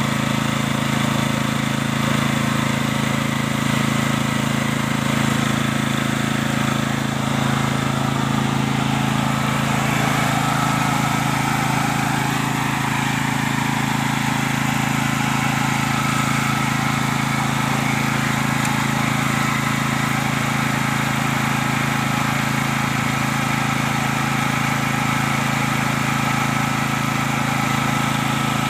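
Fort FTG7700E petrol generator's 13.5 hp single-cylinder engine running at a steady speed.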